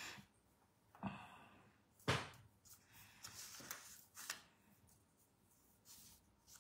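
A few soft clicks and small handling noises in a quiet room, the two loudest coming about one and two seconds in.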